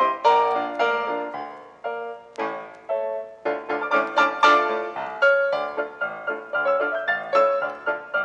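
Background piano music: a steady run of struck notes, each ringing and then fading.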